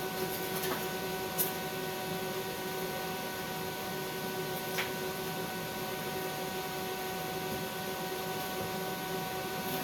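Stick welding arc burning steadily: an even crackling hiss with a few sharp pops, over a steady electrical hum.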